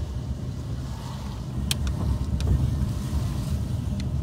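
Car driving slowly along a wet street, heard from inside the cabin: a steady low rumble of engine and tyres, with a few short clicks around two seconds in and again near the end.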